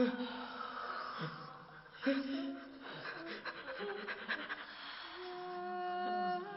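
Women's voices in an experimental vocal performance: short breathy, panting vocal sounds and brief pitched cries, then, about five seconds in, a held humming tone that grows louder.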